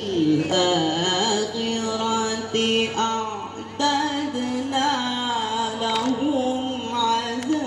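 A man singing an ornate, melismatic vocal line through a microphone and loudspeakers, without accompaniment. He holds long notes and bends and trills between them.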